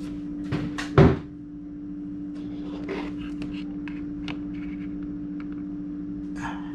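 Knocks and clicks of an object being picked up and handled, with one sharp knock about a second in and scattered light clicks after it. A steady low electrical hum runs underneath.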